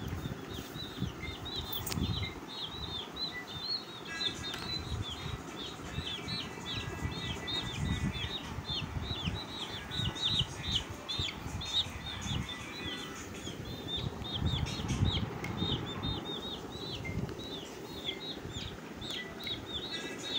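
Chicks peeping rapidly and without a break, each peep a short falling high note, several a second. Low rumbling handling noise sits underneath.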